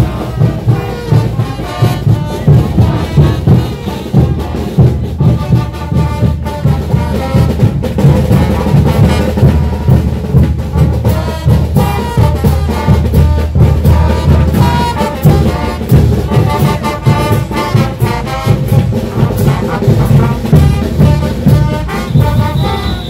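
Live brass band playing a caporales tune: trumpets and trombones carrying the melody over drums keeping a steady beat.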